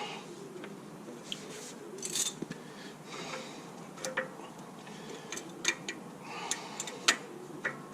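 Metal clinks and short scrapes as a worn brake pad is worked out of a disc brake caliper, with irregular sharp clicks throughout.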